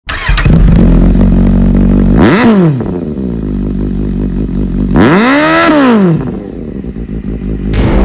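Motorcycle engine running steadily and revved up and back down twice, the second rev longer and higher. A sudden burst comes near the end.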